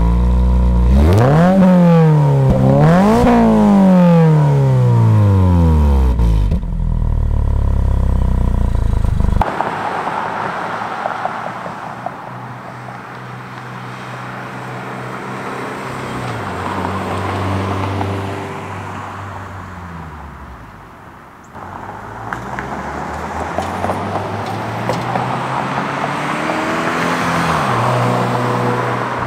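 Toyota GR86's 2.4-litre flat-four through the GR Performance dual exhaust, blipped twice from idle, the revs rising and falling quickly each time, then settling back to idle. The car is then heard from the roadside accelerating past and fading away, twice.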